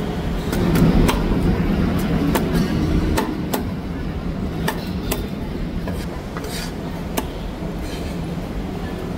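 Heavy cleaver chopping cooked duck on a thick wooden chopping block: about a dozen sharp, irregularly spaced chops through meat and bone, over a steady low background hum.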